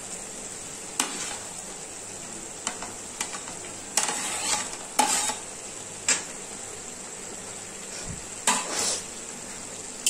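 Pre-fried cauliflower florets going into a pan of onion, ginger and spice paste that is sizzling as it is fried down. A spatula scrapes and knocks against the pan in about eight short, irregular strokes as it is stirred.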